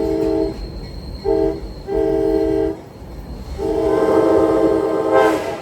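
Locomotive horn sounding four blasts: two short, then a longer one, then the longest and loudest, each a chord of several tones, over the low rumble of the train.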